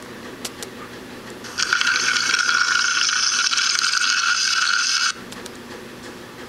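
Small battery-powered motor of a plastic toy train running with a rattling gear whir and a steady high whine; it starts about a second and a half in and cuts off sharply about three and a half seconds later.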